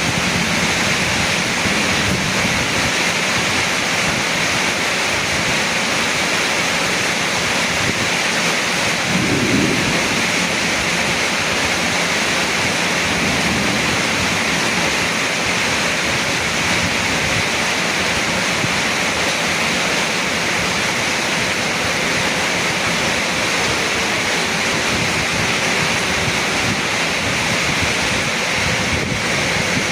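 Heavy rain pouring steadily in strong wind, a dense even hiss, with a brief deeper surge about nine seconds in.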